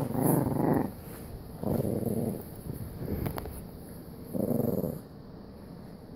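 Jack Russell terrier growling in four short bursts while it digs its head into a duvet.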